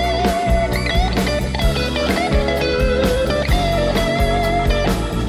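Blues-rock song in an instrumental stretch: a lead electric guitar plays sustained, bending notes over a steady bass and drum groove.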